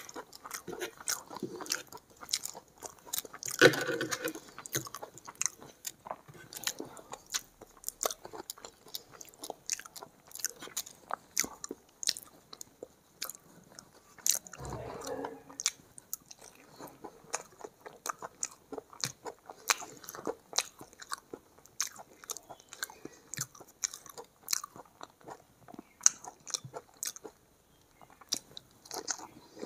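Close-miked chewing of egg curry and rice eaten by hand: a steady run of wet mouth clicks and lip smacks. There are two longer, louder mouth noises, about four seconds in and about halfway through.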